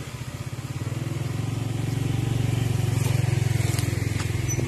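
Motorcycle engine running as it rides along, its pulsing note growing louder over the first two seconds and then holding steady.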